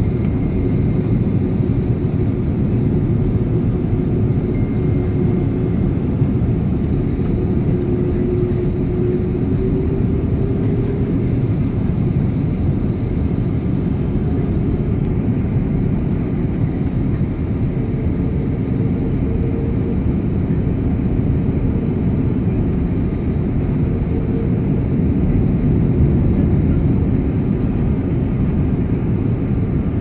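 Airliner cabin noise: a steady, dense rumble of engines and rushing air heard from inside the passenger cabin, with a faint engine hum riding on top.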